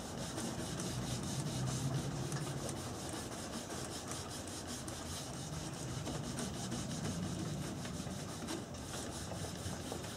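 Cloth rag rubbing sanding sealer into a yew wood frame, a steady scuffing of cloth on wood.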